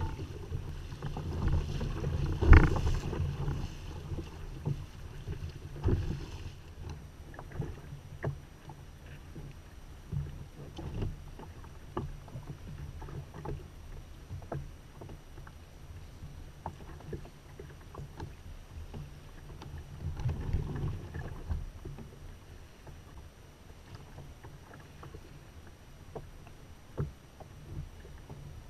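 Water lapping and splashing against a fishing kayak's hull on open sea, with wind on the microphone. This is strongest for about the first six seconds, with two loud knocks in that stretch, then quieter water with scattered small clicks and knocks.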